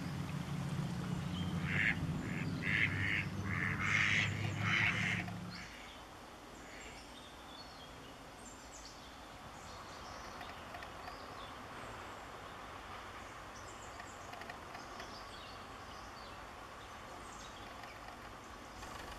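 Ducks quacking: a quick run of about six harsh quacks from about two to five seconds in, over a low steady hum that stops soon after. Then a quieter background with a few faint high chirps.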